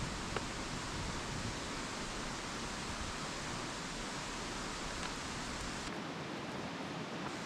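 Steady rushing of a shallow stream running over rocks, with one faint click about half a second in. The low rumble thins out about six seconds in.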